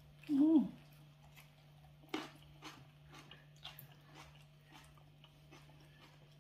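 A short vocal sound with a sliding, falling pitch about half a second in, then scattered soft clicks and crunches of people eating by hand: injera being torn and food chewed. A steady low hum runs underneath.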